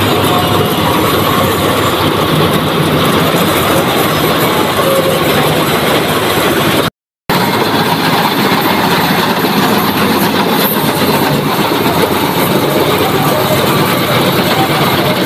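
A tractor-mounted Balkar B-525 combine harvester on a John Deere 5075E tractor running under load while cutting and threshing paddy. The engine and the threshing machinery make a loud, steady mechanical noise. The sound cuts out for a fraction of a second about halfway through.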